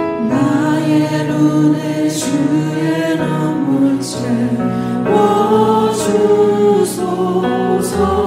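Gospel worship song as background music: voices singing in long held notes over instrumental accompaniment.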